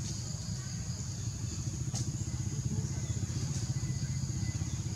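A motor running steadily with a low rumble, with a thin steady high hiss above it and a single sharp click about two seconds in.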